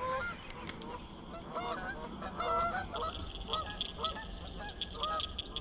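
Geese honking, a run of short repeated calls; the geese are agitated, mad at the boat. A steady high-pitched buzz comes in about halfway through.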